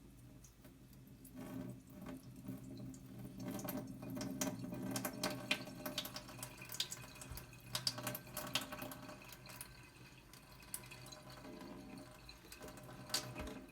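Water running and splashing into a kitchen sink while rice is rinsed in a pot, with scattered light clicks.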